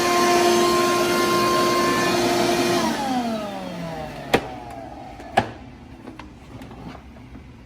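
16-gallon Craftsman shop vac running with a steady whine, then switched off about three seconds in, its motor winding down with a falling whine. Two sharp clicks about a second apart follow, then a few lighter ticks.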